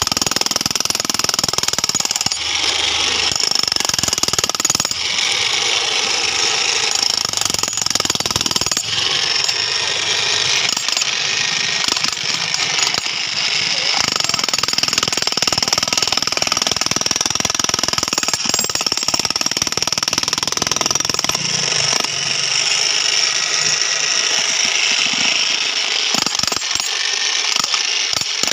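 Polymak PMDH15P 16 kg corded electric demolition hammer running continuously, its chisel hammering into an asphalt road surface in a steady, fast stream of blows.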